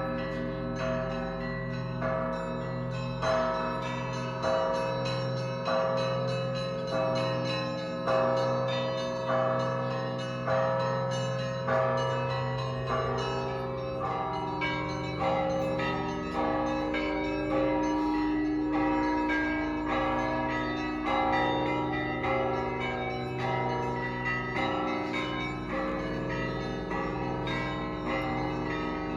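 Russian Orthodox bell ringing on a monastery belfry of seventeen bells, played by one ringer with hand ropes and a foot pedal. A deep bell is struck about every second and a half under quick, ongoing patterns of smaller, higher bells, and all of them keep ringing on together.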